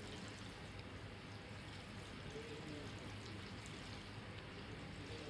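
Faint steady hiss with a low hum, under light scraping and ticking of a plastic spoon stirring thick mash dal in a pot.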